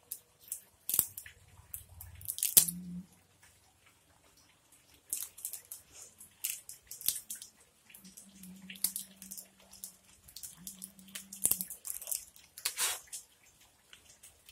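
Scattered small clicks and taps of plastic play-dough toys and tools being handled, with a few sharper knocks.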